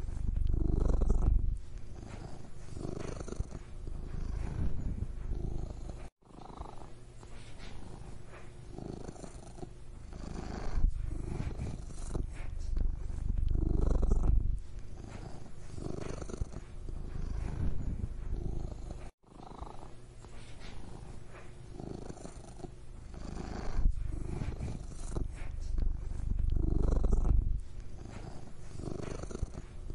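Domestic cat purring close up, a steady low rumble that swells and eases in slow waves every few seconds. The sound cuts out abruptly for an instant twice.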